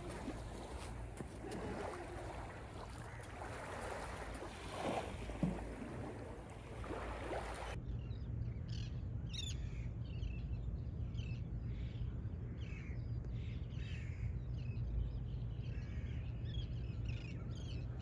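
Shoreline ambience: a steady wash of gentle surf, then from about halfway on, birds calling in many short, repeated chirps over a low steady rumble.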